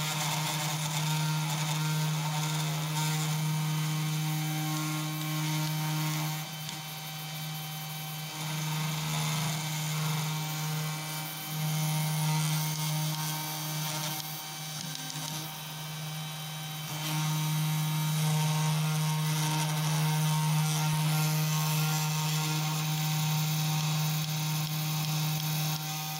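CNC2418 desktop router engraving a copper-clad PCB with a 0.2 mm V-bit: the spindle motor runs with a steady hum while the cutter is driven through the traces, the sound shifting in level every few seconds as the moves change.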